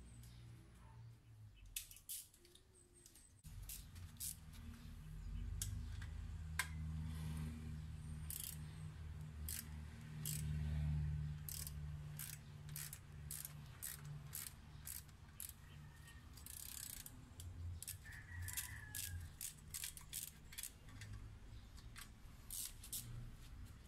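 Hand ratchet wrench clicking in short irregular strokes as the bolt on a motorcycle exhaust clamp is loosened, over a low steady hum.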